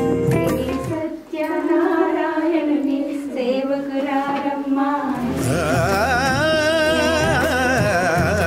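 Background music: a sung devotional-style melody. The low accompaniment drops away about a second in, leaving the voice nearly alone, then the full accompaniment returns about five seconds in, with the voice singing with vibrato over it.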